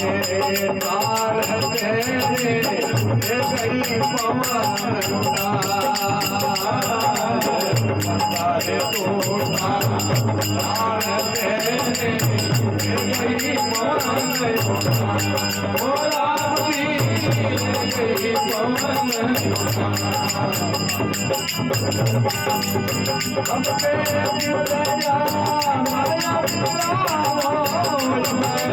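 Rajasthani devotional folk music: a fast, steady shaking or jingling percussion keeps time over a wandering melody line, with low drum beats recurring every second or two.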